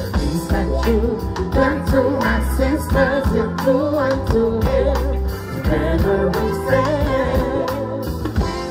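A singer performing with a live reggae band: a wavering sung melody over a heavy, deep bass line and steady drum hits.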